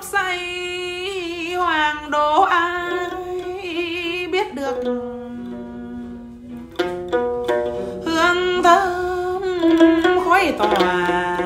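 Chầu văn singing: a man's voice with a wide vibrato on long held notes, accompanied by a plucked đàn nguyệt (moon lute), with a few sharp clicks of wooden phách sticks.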